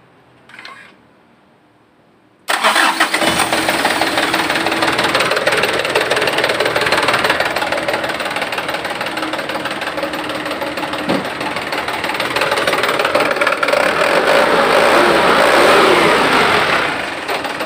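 Mitsubishi Canter truck's diesel engine starting on the starter about two and a half seconds in, its first start after new fuel filters were fitted and the fuel system was bled of air, then running steadily. Near the end it speeds up and falls back.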